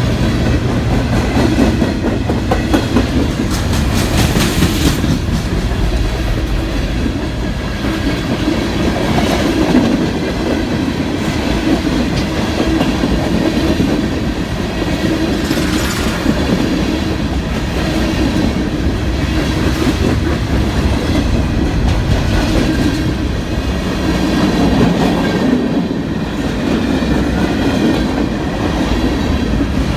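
Train cars rolling steadily past, the wheels clicking over rail joints above a continuous loud rumble.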